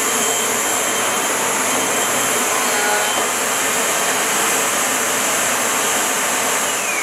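Upright vacuum cleaner running with a steady rushing noise and a high motor whine. Near the end it is switched off, and the motor's whine falls in pitch as it spins down.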